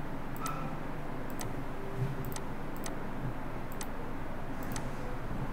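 Computer mouse button clicking, single sharp clicks roughly once a second, over a steady low room hum.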